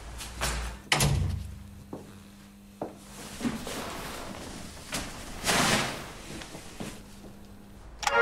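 Scattered door thuds and clicks, the loudest about a second in, with a short rustle about five and a half seconds in and a faint steady hum underneath.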